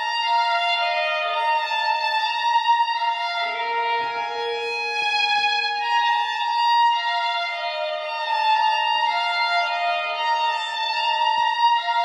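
Solo fiddle bowed in long held notes that change every second or two, often two notes sounding together, in a brick tunnel.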